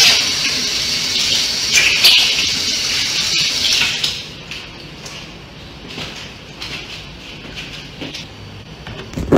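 Water running from a kitchen tap, a steady hiss that is shut off about four seconds in. Then a few light clicks and a sharp thump near the end.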